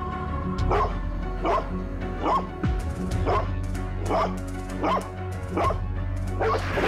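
A large dog barking over and over at an even pace, about eight barks a little under a second apart, over background music with held tones.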